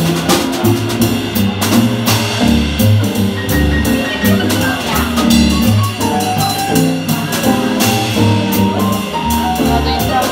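A live jazz trio playing: upright double bass, keyboard and drum kit, the drummer keeping time on the cymbals.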